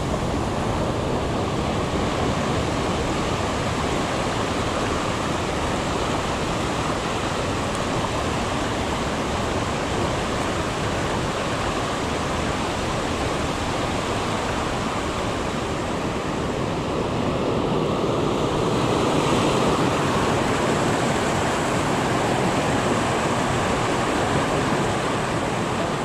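Waterfall and rocky stream rushing: a steady, even wash of water noise.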